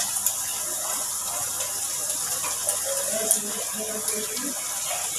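Steady sizzling hiss of an onion-and-tomato masala frying in oil in a wok on a gas stove.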